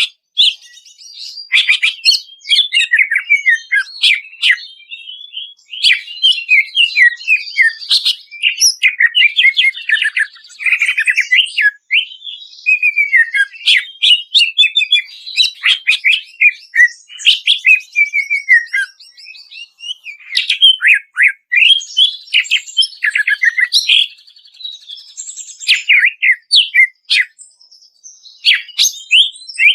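Greater green leafbird (cucak ijo) singing without a break: a fast, busy stream of sharp chirps, whistled up-and-down glides and rapid trills, with a few short pauses.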